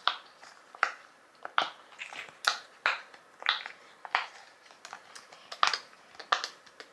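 Silicone push-pop fidget toy bubbles being pressed through one after another: a series of short soft pops, roughly two a second.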